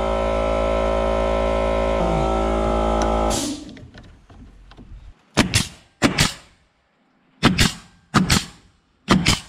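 Background music with steady held notes stops suddenly about three and a half seconds in. It is followed by sharp knocks on wood: five strikes in pairs about two-thirds of a second apart, each with a short ring.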